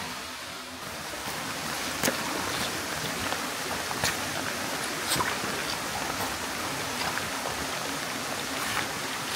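Small stream running over rocks: a steady rush of flowing water with irregular sharp splashes and drips over it.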